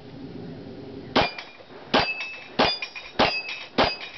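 Glock pistol firing five quick shots, about one every two-thirds of a second, each followed by the ring of a steel target plate being hit.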